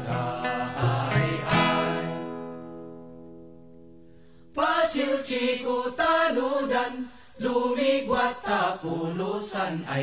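Music with plucked strings and a low pulse; a chord rings out and fades over a few seconds. About four and a half seconds in, voices start singing in a chanting style.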